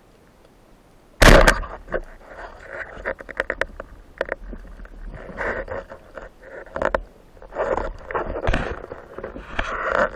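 Underwater, a sudden loud crack about a second in, followed by a run of irregular sharp clicks and knocks from a spearfisher's gear moving in the water.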